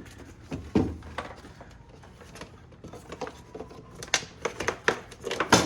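Clicks, knocks and rattles of a broken car window regulator, its cable snapped, being worked out of the door. The sounds are scattered at first, come thicker in the last couple of seconds, and the loudest knock falls near the end.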